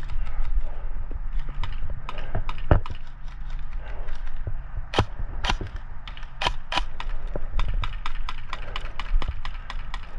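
Airsoft guns firing, with BBs hitting: a dense run of irregular sharp clicks, several a second, loudest in the middle.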